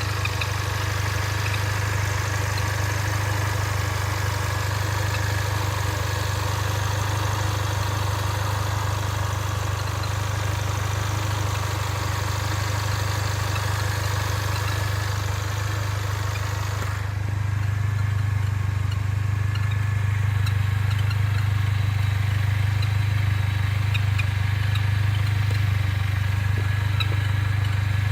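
Mercedes-Benz A45 AMG running, heard as a steady low engine drone with a hiss that drops away about seventeen seconds in. Faint, brief high chirps come and go; this is the bird-like abnormal noise that the owner is trying to diagnose.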